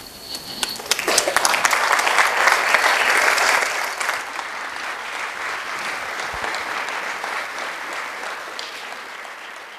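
A small audience applauding: a few scattered claps, building quickly into full applause about a second in, then slowly tapering off.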